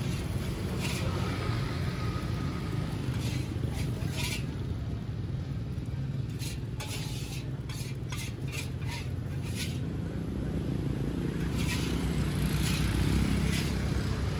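Metal spatula scraping and striking a large wok in quick strokes while food sizzles, in bursts with short pauses between them, over a steady low rumble.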